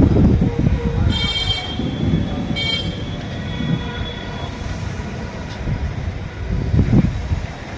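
A vehicle horn sounds two short honks, one about a second in and another near the three-second mark, over a steady low rumble of traffic and wind on the microphone.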